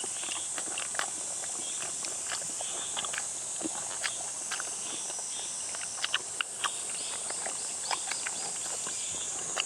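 Close-up eating sounds: chewing, mouth smacks and scattered sharp clicks of utensils, over a steady high drone of summer insects.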